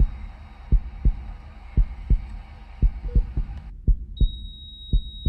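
Heartbeat sound effect: slow double thumps about once a second. Under them a faint hiss cuts off about three and a half seconds in, and a steady high-pitched tone comes in about four seconds in and holds.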